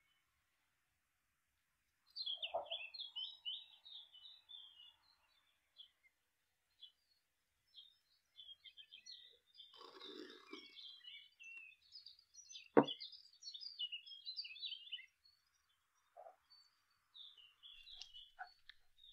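Birds singing in quick, high chirping phrases. A short rustle comes about ten seconds in, and a single sharp knock, the loudest sound, about three seconds later.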